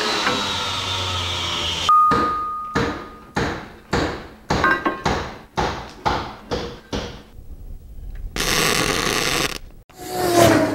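An angle grinder with a cutting blade runs through steel plate, its pitch sagging under load, then stops. A string of sharp metal knocks and clanks follows, the first one ringing on, and a short burst of hiss comes near the end.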